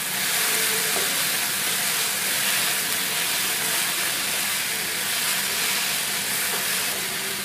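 Chopped onions, tomatoes, capsicum and cashews sizzling steadily in oil in a non-stick frying pan while being stirred with a spatula, an even frying hiss.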